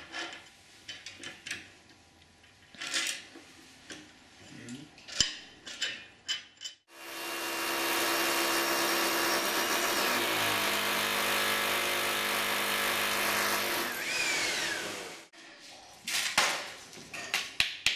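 Electric drill boring holes into a wall for the sliding-door track fixings, running steadily for about eight seconds with its pitch dropping a little partway through. Scattered clicks and knocks of handling come before and after it.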